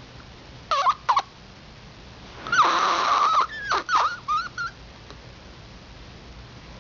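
An animal's calls: two short squeaky calls, then a harsh drawn-out squawk of about a second, then a quick run of short squeaks.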